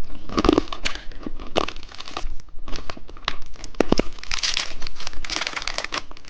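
Candy wrapper crinkling and tearing as it is handled and opened, in quick irregular crackles that grow denser about two-thirds of the way through.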